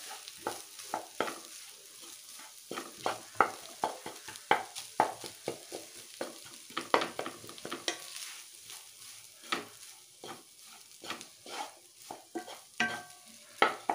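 Wooden spatula scraping and knocking against a non-stick wok in irregular strokes as cooked rice and scrambled egg are stirred together. A faint steady sizzle of frying runs underneath.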